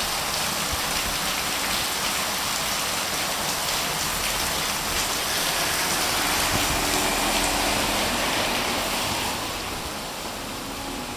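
Heavy rain pouring down, a dense steady hiss that grows somewhat quieter about nine seconds in.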